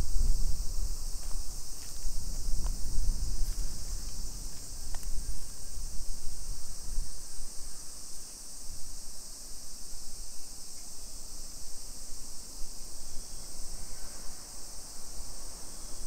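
A chorus of cicadas shrilling steadily without a break. Low rumbling thumps sit underneath for the first few seconds, then die away.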